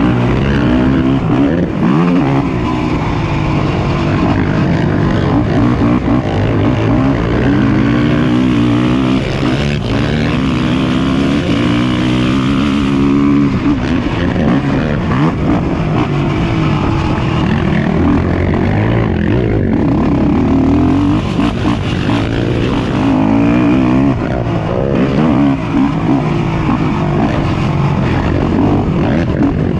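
Engines of several racing ATVs (quads) on a motocross track, revving up and down as they accelerate, shift and back off, with their pitches overlapping.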